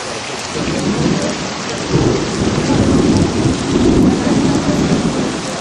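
Heavy rain pouring steadily, with a low rumble of thunder that builds about half a second in, is loudest in the middle and eases near the end.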